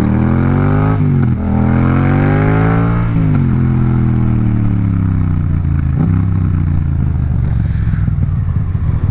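Yamaha MT-07's parallel-twin through a full Akrapovic titanium exhaust, accelerating away. The revs climb, drop at a gear change about a second in, and climb again to a second shift at about three seconds. They then fall slowly as the throttle is closed and settle low.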